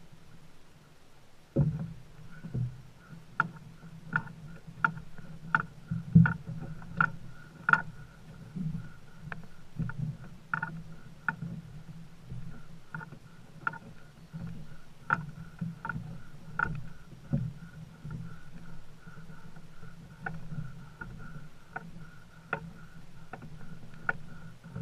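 Walking footsteps and the jolting of a shoulder-carried canoe and its gear: a knock or clunk about every three-quarters of a second, in step with the walk, starting about a second and a half in. A faint ringing note brightens with each knock over a low steady hum.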